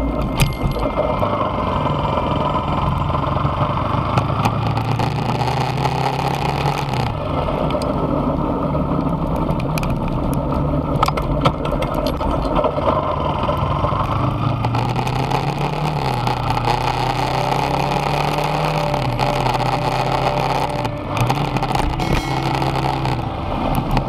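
Motorcycle engine running under way, its pitch climbing and then dropping several times as the throttle and revs change, over a steady rush of wind and road noise.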